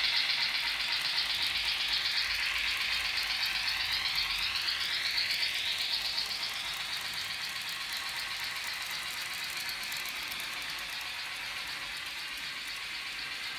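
N-scale model train rattling along the track, its wheels and mechanism making a fine, busy rattle with a whir. The whir rises in pitch about three to six seconds in, and the sound slowly fades as the train moves away.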